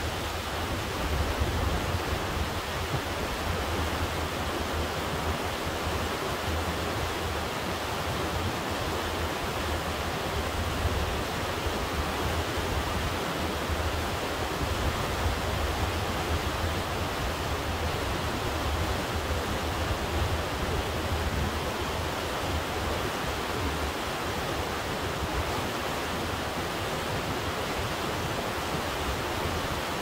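Glacier-fed Kennicott River rushing: a loud, steady wash of water noise with a deep rumble underneath.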